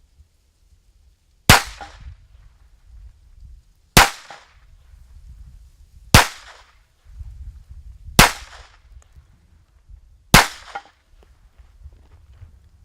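Five shots from a small .25-calibre pistol, about two seconds apart, each a sharp crack with a short fading tail.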